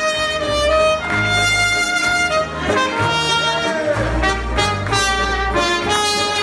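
Live jazz band playing: two trumpets and a saxophone carry the melody in held, bright notes over a keyboard bass line.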